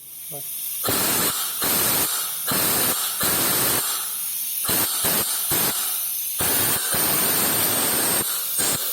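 Compressed air from a blowgun hissing into the VVT oil passage of a Chevrolet Cruze 1.8 Ecotec cylinder head, in a string of short blasts with brief breaks. The air escapes where the warped camshaft tower fails to seal: the leak that drains oil pressure from the VVT.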